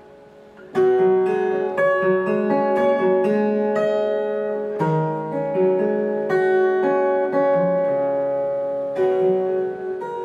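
Solo steel-string acoustic guitar, finger-plucked. A held chord dies away into a short pause, then about a second in the tune resumes with plucked melody notes over a bass line.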